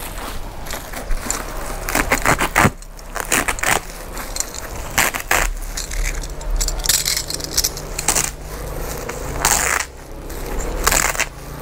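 A cardboard carton being torn open, then a woven plastic sack being pulled and ripped open. Irregular bursts of tearing, crackling and rustling, with sharp rips scattered through.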